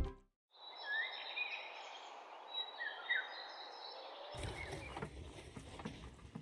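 Birds chirping in short rising and falling calls over a steady outdoor hiss; about four seconds in, the background changes suddenly to a fuller sound with low rumble and scattered knocks.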